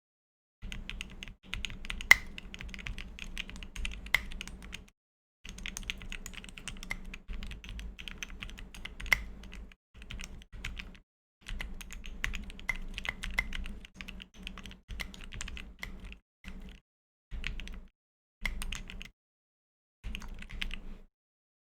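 Typing on a 60% mechanical keyboard with lubed and filmed Tangerine linear switches, PBT keycaps and an aluminium case and plate dampened with foam: quick runs of keystrokes in bursts of a second to a few seconds, broken by short pauses, with a few sharper, louder key strikes early on.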